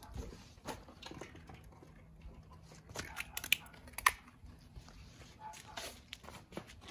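A heavy plastic bag of fertilizer crinkling and rustling as it is handled and opened, with a few sharp clicks, the loudest about three and four seconds in.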